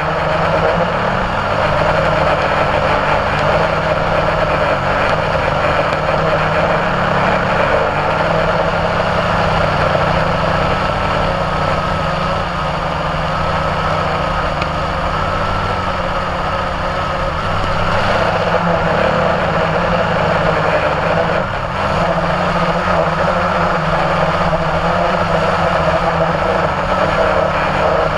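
Multirotor drone's electric motors and propellers buzzing steadily in flight, a constant whine that wavers slightly in pitch.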